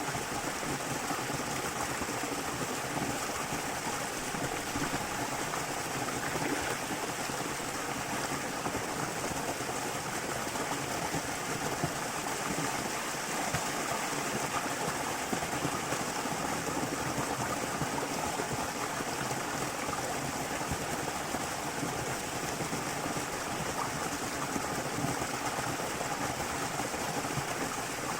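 Small waterfall or river water rushing steadily.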